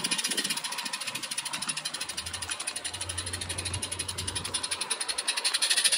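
Roundhouse Vale of Rheidol 16mm-scale live-steam locomotive running under way, its exhaust giving a fast, even chuff with hiss. A low hum joins about two seconds in.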